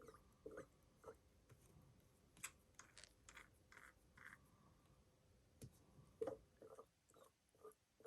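Near silence broken by faint scattered clicks and a few short soft rustles around the middle: small handling sounds of a fountain pen and tissue.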